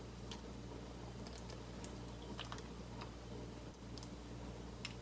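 Faint, scattered light clicks and taps of a metal ladle against a hammered aluminium pot and a bowl as soup is ladled out, over a steady low hum.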